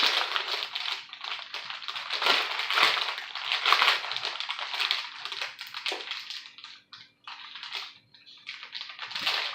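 Irregular crisp crackling and crunching from a bag of Japanese potato sticks being handled and eaten, busy at first and thinning to scattered crackles in the second half.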